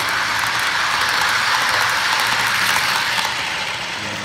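Model train running past close by on its track: a loud, steady rolling whir of locomotive and car wheels on the rails. It fades as the last cars go by, about three seconds in.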